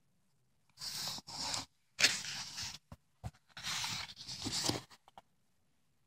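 A page of a paper picture book being turned and pressed flat: a few seconds of papery rustling and scraping in several bursts, with a small click about midway.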